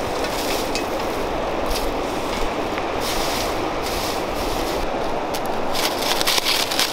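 A steady rushing noise with scattered rustles of dry straw being tossed over upturned metal buckets. Near the end comes a louder crackling as a knife slits a plastic bag.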